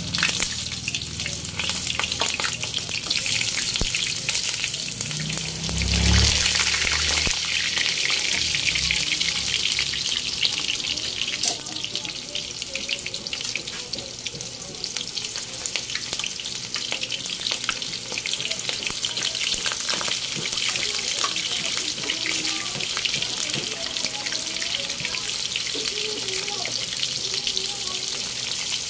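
Eggplant pieces deep-frying in hot oil: a steady sizzle full of crackles, with a louder surge and a low thump about six seconds in.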